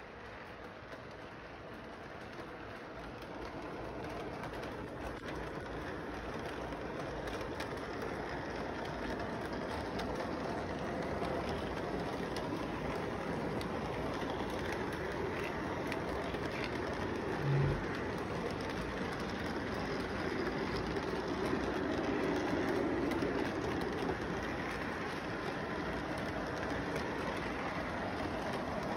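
Electric model train running on its track: a steady rolling noise of wheels and motor that grows louder as the cars come closer. A short low thump about two-thirds of the way through.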